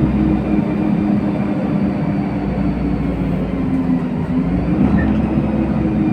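LiAZ-5292 city bus running under way, heard from inside the passenger cabin: a steady engine and drivetrain hum over a low rumble of road noise, its pitch dipping briefly about four seconds in.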